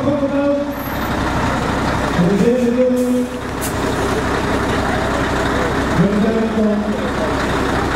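Drawn-out shouted calls, each rising in pitch and then held for about a second, repeat every three to four seconds over a steady crowd din and a low hum, as a team is cheered on while pulling a truck.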